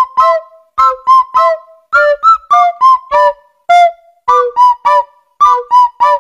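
Rubber squeaky toy squeaking over and over as a puppy chews it, about three short squeaks a second at shifting pitches.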